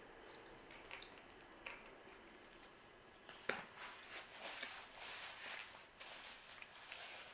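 Soft chewing with a few small mouth clicks while pizza is eaten. About halfway in there is a sharp click, then a paper napkin crinkles and rustles for a few seconds as hands are wiped.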